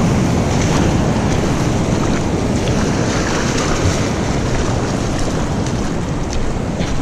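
Surf washing in over a rocky reef at the water's edge, a steady loud rush of water, with wind buffeting the camera's microphone.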